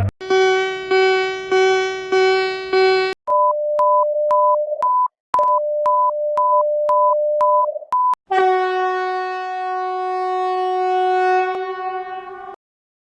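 Synthesized emergency-alert tones: five short buzzy beeps, then high pips over a steady lower tone, broken by two brief gaps, then one long buzzy tone of about four seconds that cuts off abruptly.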